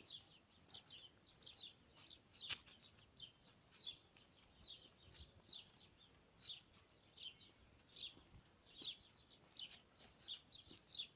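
A small songbird chirping faintly and repeatedly, short high chirps that drop in pitch, about three a second. A single sharp click about two and a half seconds in.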